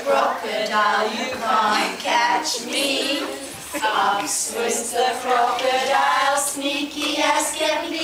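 A group of children singing a song together in unison.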